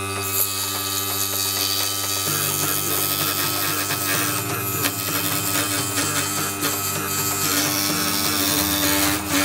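Pegas scroll saw running with a #5 MGT blade, cutting quarter-inch MDF: a steady motor hum with the hiss of the blade in the board.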